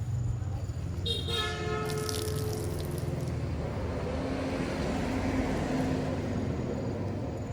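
Road traffic: a vehicle horn sounds once for about a second, about a second in, over a low engine rumble, then a vehicle passes by.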